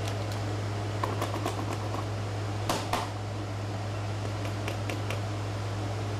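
Keys on a Unitech PA600 rugged PDA's keypad clicking irregularly, a few times a second, with two louder clicks about three seconds in, over a steady low hum.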